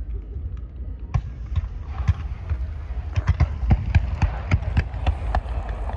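Fireworks crackling: a rapid string of sharp pops, several a second, starting about a second in, over a low rumble.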